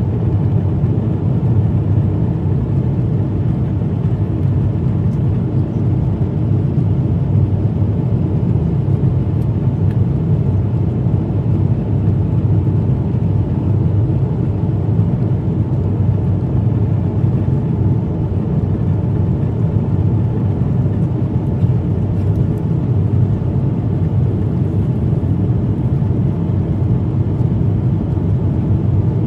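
Jet airliner cabin noise in flight: a steady, loud low rumble of engines and airflow heard from inside the cabin.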